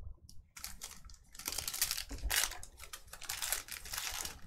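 Crinkling of a trading-card pack wrapper and plastic card holders being handled, with many small irregular clicks and crackles.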